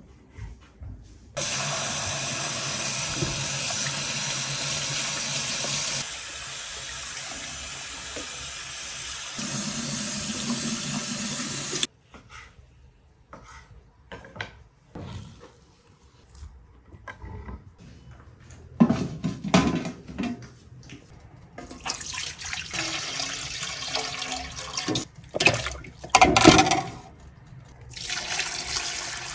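Tap water running and splashing over chunks of bone-in meat being rinsed by hand in a glass bowl in a stainless steel sink. The tap stops suddenly partway through, leaving irregular splashing and handling sounds. Water then pours again, filling a metal pot over the meat.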